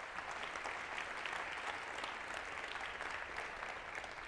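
Audience applauding steadily, many people clapping at once.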